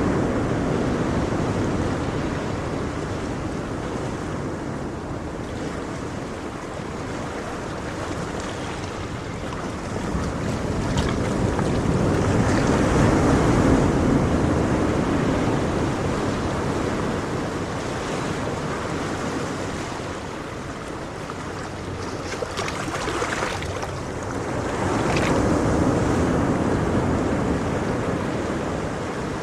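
Ocean surf: waves washing in as a steady rush that swells twice, about twelve seconds apart.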